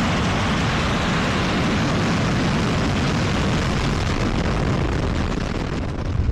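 ULA rocket's engines and solid rocket boosters firing at liftoff, heard from very close: loud, steady exhaust noise spread evenly from deep bass up through high hiss.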